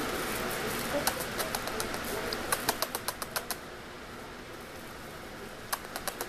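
Corgi puppies scuffling on a fabric play tunnel and floor mats: rustling, with a quick run of sharp clicks and taps from about a second in, and a few more clicks near the end.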